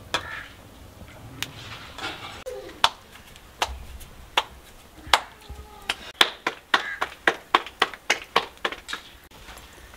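Hands slapping a ball of roti dough flat between the palms: a few single slaps at first, then a quick regular run of about three to four slaps a second in the second half.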